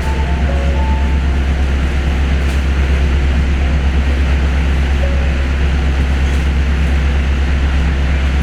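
Interior running noise of an Osaka Monorail train on its rubber-tyred straddle beam: a steady, loud low rumble with road-like hiss, heard from inside the car. A few brief faint whining notes come through near the start and again about five seconds in.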